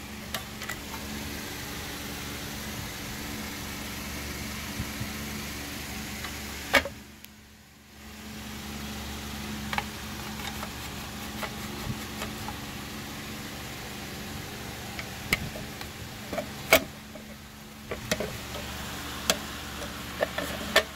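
A steady low mechanical hum, with scattered sharp metallic clicks and knocks from a Hitachi coil nailer's metal parts being handled. The hum drops out for about a second around seven seconds in.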